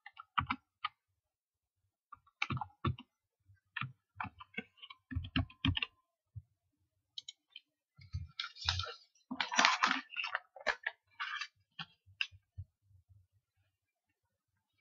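Computer keyboard keys clicking as a password is typed, in irregular bunches of quick keystrokes, the densest and loudest about two-thirds of the way in.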